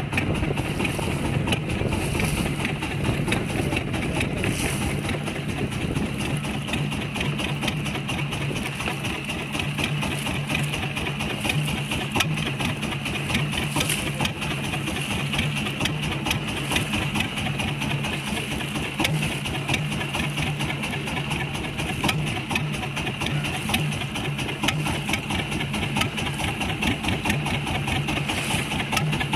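Small fishing boat's engine running steadily at low speed, a fast, even pulsing hum.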